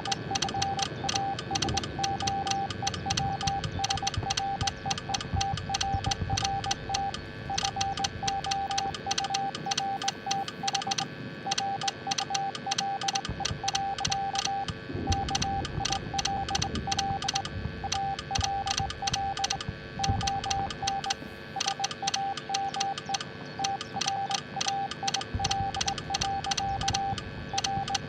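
Morse code: a steady single-pitched beep keyed on and off in short and long elements (dots and dashes), over a fast run of sharp clicks.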